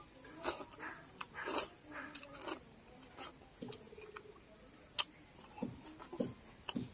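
A person eating noodles with his hands: a series of short, wet slurps of noodle strands and chewing mouth sounds, with one sharp click about five seconds in.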